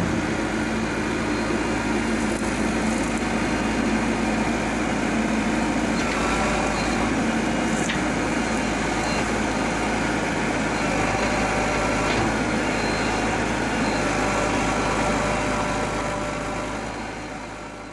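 Heavy diesel engine of earthmoving machinery running steadily, fading out near the end.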